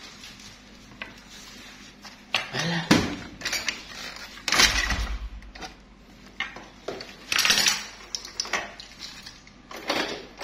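Metallic clanks and rattles in several short bursts, with a brief low rumble about four and a half seconds in, as a Honda Beat scooter is being started.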